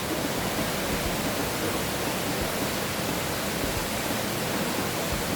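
Chicken pieces frying in a wok: a steady, even sizzle.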